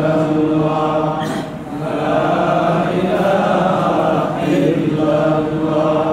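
A voice chanting Arabic dhikr in long, held melodic notes, with a brief dip about a second and a half in.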